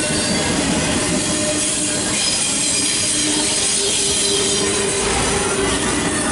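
CSX double-stack intermodal freight train's well cars rolling past close by: a steady rumble and clatter of steel wheels on the rails, with thin sustained squealing tones from the wheels.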